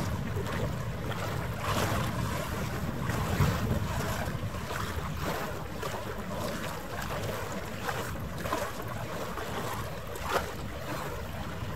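Wind buffeting the microphone over harbour water lapping, a steady noisy rumble. A few short sharp sounds stand out, at about two, three and a half and ten seconds in.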